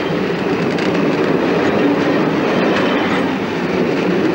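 Passenger train running along the rails: a steady rumble of wheels and carriages.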